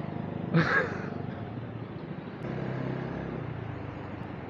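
Motorcycle exhaust in traffic: a short, loud, harsh blast about half a second in, then the engine revs up for about a second past the halfway mark. The exhaust makes a lot of noise.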